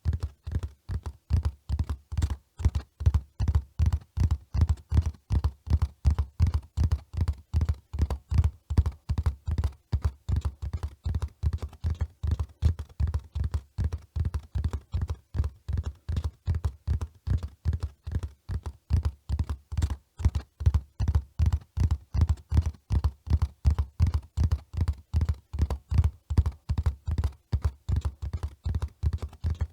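Horse hooves running in a steady, even rhythm of dull thuds, about three or four hoofbeats a second, with no change in pace.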